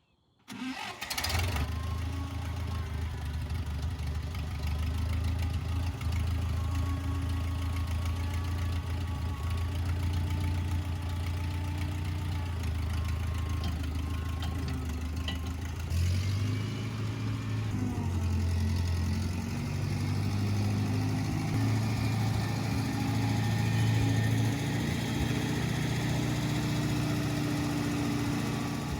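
Small gasoline engine of a Norwood LumberMate portable bandsaw mill starting about a second in, then running steadily, its pitch shifting around the middle and several times in the second half.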